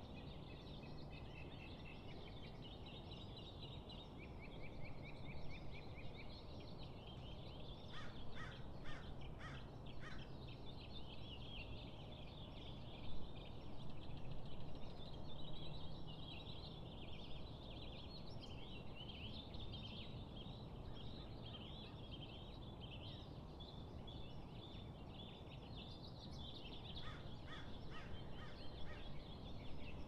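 Many small birds chirping and chattering together, with a quick run of five or so sharp, harsh notes about eight seconds in and again near the end. A steady low rumble lies beneath, and a brief louder bump comes about thirteen seconds in.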